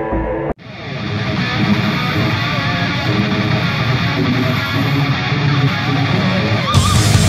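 Background rock music with guitar. It starts after a sudden break about half a second in, and there is a bright crash near the end.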